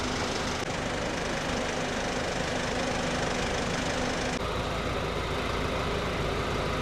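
A car running, a steady engine and road noise, with a sudden change in its sound about four and a half seconds in.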